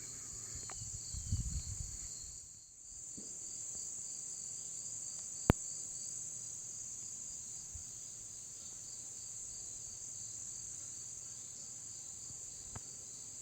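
Outdoor insect chorus of crickets: a steady high trill with a faint pulsing call just below it. One sharp click cuts through about five and a half seconds in.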